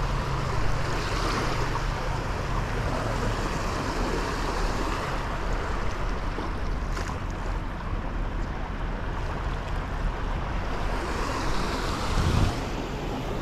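Small waves lapping and washing onto a sandy beach, a steady rush of surf with some wind on the microphone. The wash swells about a second in and again near the end.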